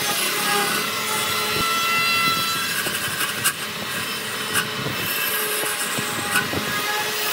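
Wood lathe running while a turning tool cuts the spinning wood: a steady hiss of cutting, broken by a few sharp clicks.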